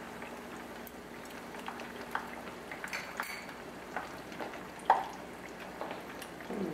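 Beer-battered zucchini blossoms frying in hot olive oil in a skillet: a steady sizzle with scattered pops and crackles, the loudest about five seconds in.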